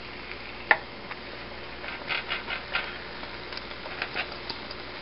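Wooden spatula knocking and scraping against a nonstick frying pan while turning a roti prata. There is one sharp knock under a second in, then a run of light taps and scrapes around two seconds in, over a faint steady hiss.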